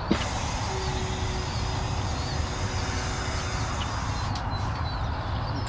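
Aerosol spray can hissing for about four seconds and then stopping, over a steady low rumble, with faint bird chirps.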